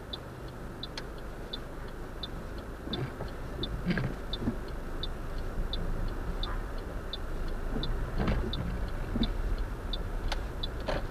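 Car turn-signal indicator ticking steadily inside the cabin, about three ticks every two seconds, over the low drone of the engine and tyres. A couple of soft knocks come about four and eight seconds in.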